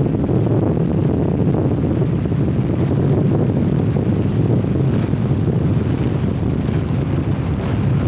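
Steady, loud low engine drone mixed with wind rushing over the microphone.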